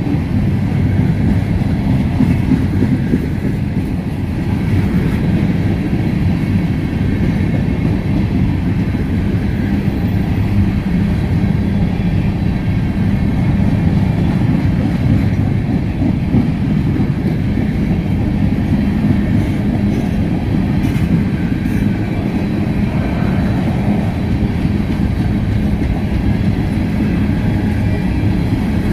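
Freight train of covered hopper cars rolling past: a steady rumble of steel wheels running on the rails.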